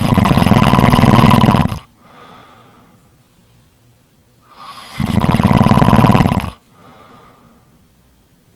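A sleeper snoring loudly: two long rasping snores, one at the start and one about five seconds in, each followed by a much softer breath.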